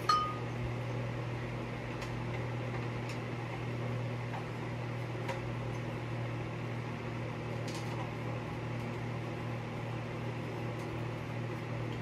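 A steady low hum in the room, with a short clink right at the start and a few faint clicks scattered through, from hands working on a ceiling fan's blade screws and fittings while taking its blades off.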